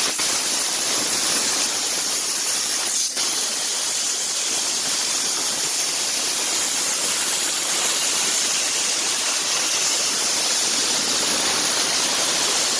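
CNC laser cutting machine running: a steady, loud hiss, mostly high-pitched, with a short break about three seconds in.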